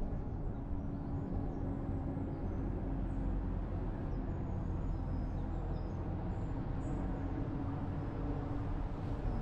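Bus driving along a street, heard from on board: steady low engine and road rumble with a constant hum.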